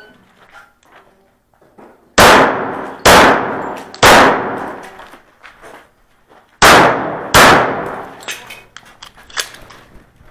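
Sig Sauer Emperor Scorpion 1911 pistol firing .45 ACP: five loud, echoing shots, three about a second apart, then after a pause two more close together. A lighter, sharp knock comes near the end.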